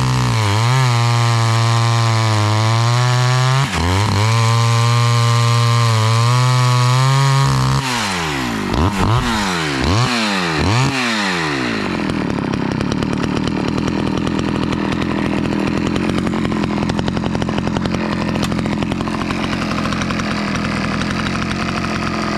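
Small Stihl AV two-stroke chainsaw at full throttle cutting ash, its pitch sagging and recovering under load. Then a few quick revs, and from about halfway through it idles steadily.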